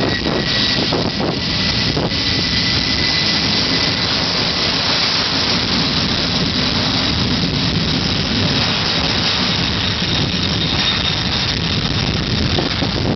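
Boeing 767 freighter's twin jet engines at takeoff power on the takeoff roll: a loud, steady rush with a high, even whine over it.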